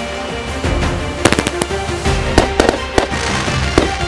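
Consumer aerial fireworks bursting overhead: a quick run of about seven sharp bangs, some in close pairs, over background music.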